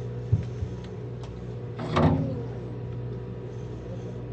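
A boat's engine idling with a steady low hum. There is a short click about a third of a second in, and one brief loud sound with a falling pitch about two seconds in.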